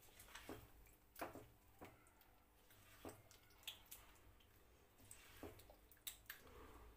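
Faint, irregular clicks and soft squelches of a spoon stirring chicken in yogurt masala in a pan on the gas, over a low steady hum.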